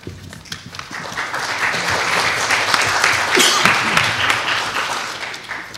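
Audience applauding, building up over the first couple of seconds and tapering off near the end.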